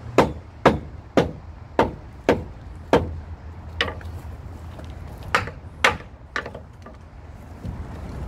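Club hammer striking a wooden beam of a fairground ride's frame, knocking it up tight. About ten sharp knocks, mostly half a second apart, with a pause in the middle; the knocks stop about six and a half seconds in.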